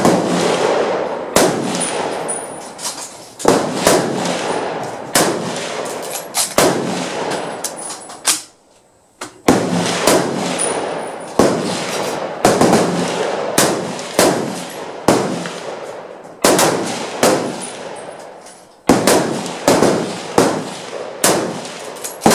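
Rifle fire from a firing line, among it the M1 Garand in .30-06: many sharp shots at irregular spacing, roughly one or two a second, each with an echoing tail. There is a short break about eight and a half seconds in.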